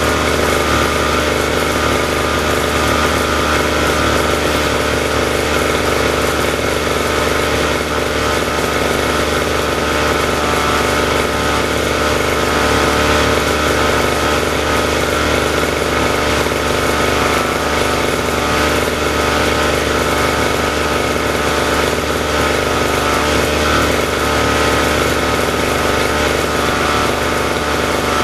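Small lawn mower petrol engine running steadily at high speed, its pitch and level unchanging.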